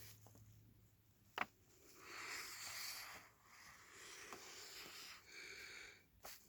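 Faint scratchy strokes of a felt-tip marker drawing on paper, with a single sharp click a little over a second in.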